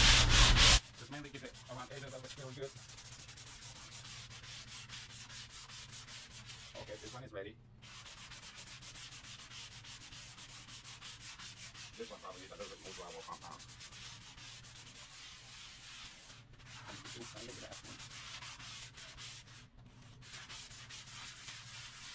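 Hand sanding block rubbed back and forth over dried drywall joint compound in quick, continuous strokes, smoothing a wall patch before painting. The sanding stops briefly about seven seconds in and twice more near the end.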